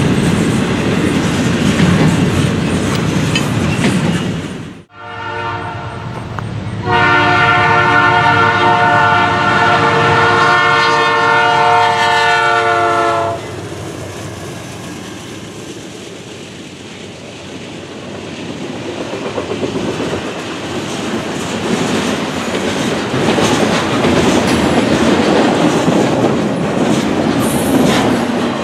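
Freight train cars rolling past on the rails; after a sudden cut, a locomotive air horn sounds a chord, faint at first and then loud and held for about six seconds, a warning for the grade crossing. The horn is followed by the rumble and clickety-clack of cars passing, which grows louder near the end.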